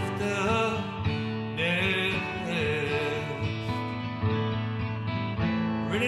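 A man singing to his own acoustic guitar. His voice drops away for a couple of seconds past the middle, leaving the guitar alone, then comes back near the end.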